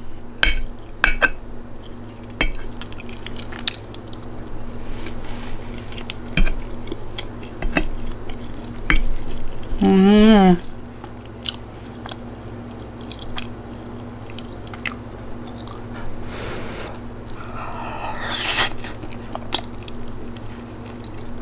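Close-miked chewing and mouth clicks of a person eating soft scrambled eggs and bread, with a short hummed voice sound about ten seconds in and a longer breathy noise near the end.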